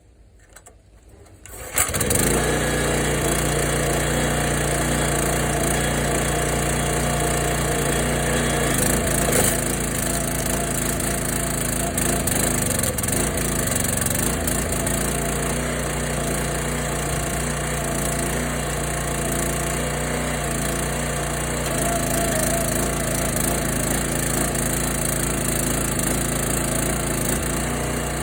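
Log splitter's single-cylinder Kohler 6.5 hp engine starting up about two seconds in, then running steadily at a constant speed.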